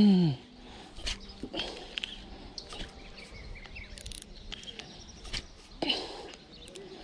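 Small birds chirping intermittently in short calls, with scattered faint clicks.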